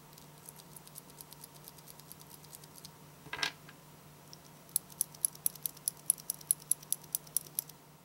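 A broken Cherry MX Blue keyboard switch pressed repeatedly gives only faint ticks, with no proper click. About halfway through, a good MX Blue switch is pressed in quick succession, giving sharp, crisp clicks several times a second.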